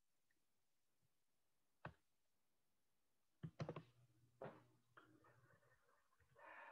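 Near silence with a few faint clicks: one about two seconds in, a quick cluster around three and a half seconds and another a second later, then a faint low hum and soft rustling near the end.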